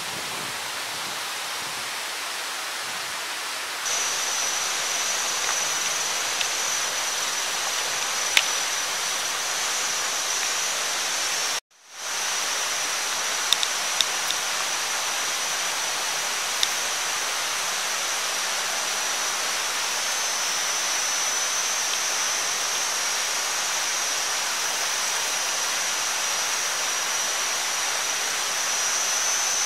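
Steady sizzling hiss of pork, meat and an egg frying on a hot stone over a fire, with a steady high-pitched whine over it and a few sharp clicks. The sound cuts out for an instant about twelve seconds in.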